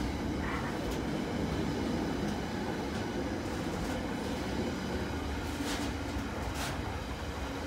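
Train running with a steady low rumble. Two brief hissing bursts come near the end.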